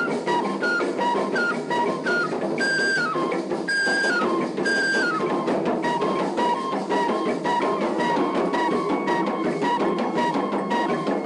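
Traditional drum ensemble playing a fast, dense rhythm for dancing. Over the drums runs a high melody of short repeated notes, several of them sliding down in pitch.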